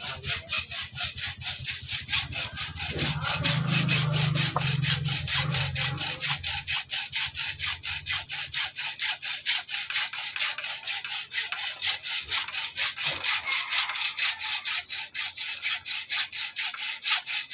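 Hacksaw cutting through a metal bicycle part in quick, steady back-and-forth strokes.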